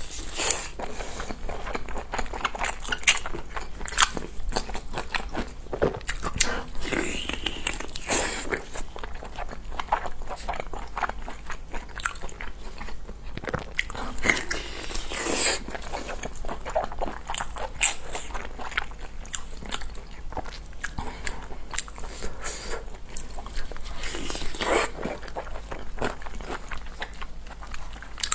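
A person chewing and biting food close to the microphone, likely braised pork large intestine. It comes through as a dense, irregular run of small clicks and crunches.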